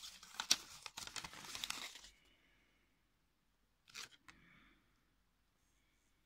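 Paper leaflets rustling and crinkling as they are handled and unfolded, busy for the first two seconds, then one short rustle about four seconds in.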